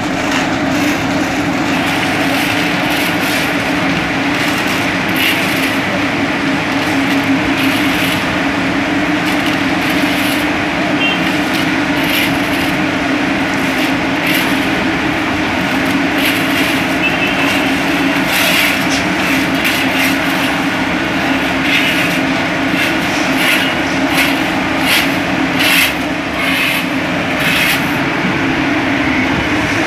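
Diesel concrete mixer pump machine running steadily, a constant engine drone with irregular clattering and rattling over it.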